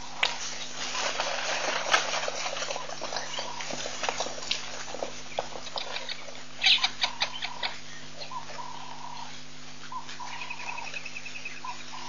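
A herd of zebras bolting on dry ground, a clatter of hooves for the first seven seconds or so, with short repeated animal calls in the last few seconds.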